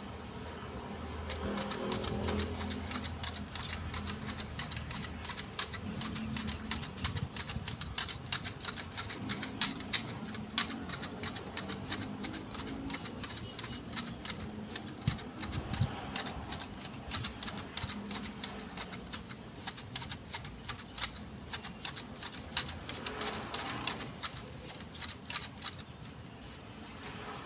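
Hand-held garden shears snipping rapidly through the small twigs and leaves of a Fukien tea shrub: a quick, uneven run of sharp clicks, several a second, loudest about a third of the way in and thinning out near the end.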